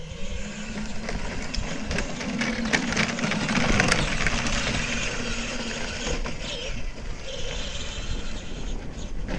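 Battery-powered Power Wheels toy ATV driving, its electric drive motors and gearboxes giving a steady hum while its plastic wheels roll over dirt and dry leaves.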